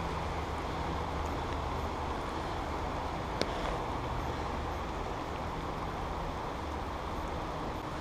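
Steady outdoor background rumble with a faint low hum, and one small click about three and a half seconds in.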